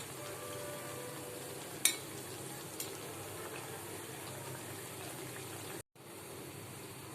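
Potato pieces frying in hot oil with a steady sizzle, and a sharp click about two seconds in. The sound cuts out for an instant near the end, then the sizzle resumes.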